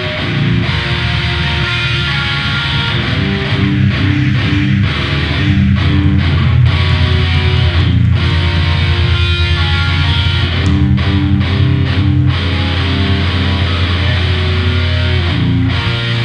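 Heavy metal band playing live: distorted electric guitar and bass guitar riffing over drums, with short stop-start breaks in the riff.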